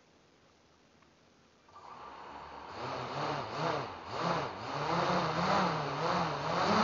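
A small motor starts up a little under two seconds in and runs with its pitch swinging up and down about once a second, getting louder, then climbs higher near the end.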